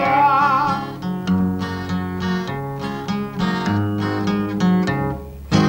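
A man's singing voice holds a final note with vibrato for about a second, then an acoustic guitar accompaniment plays strummed chords in a steady rhythm.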